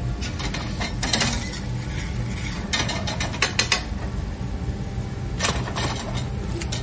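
Aluminium frying pan clattering and scraping on a gas hob's grate as gnocchi in tomato sauce are tossed and stirred. The clicks come in clusters: about a second in, a longer run around three seconds in, and again near the end, all over a steady low hum.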